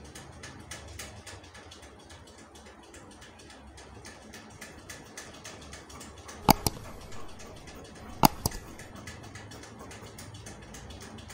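Fabric rustling and scissors snipping through cloth, faint ticks and rustles throughout. About six and a half seconds in, and again nearly two seconds later, a sharp mouse-click sound effect, each a quick double click, from a subscribe-button animation; these clicks are the loudest sounds.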